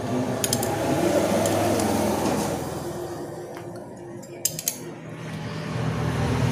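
Steel spanner clinking on a nut at a motorcycle's battery and starter wiring as it is worked, with two sharp metallic clicks about four and a half seconds in, over a low steady hum.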